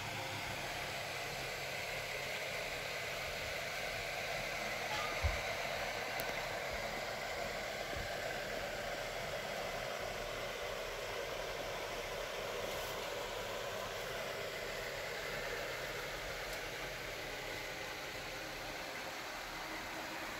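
Steady, even background noise, with one brief soft thump about five seconds in.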